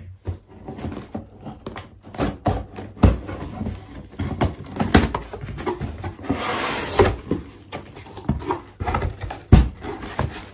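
Cardboard box being opened by hand: a string of knocks, taps and scrapes on the cardboard, with a longer tearing noise about six to seven seconds in.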